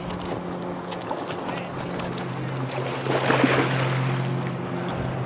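A boat motor drones steadily out on the river. About three seconds in there is a splash as a landing net is dipped into the water to scoop up a hooked sockeye salmon.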